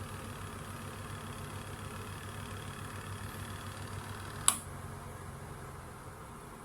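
Small laundry appliance motor running with a steady hum. A single sharp click comes about four and a half seconds in, and after it the running sound is a little quieter.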